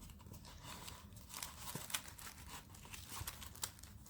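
Faint rustling and crinkling of packaging as a model locomotive is slid out of its box, with a few small clicks and knocks.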